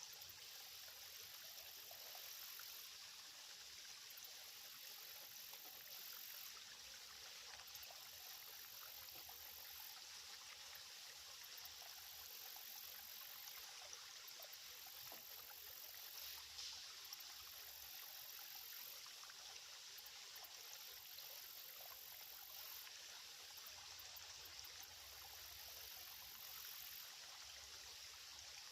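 Faint, steady trickle of a small, shallow creek's running water.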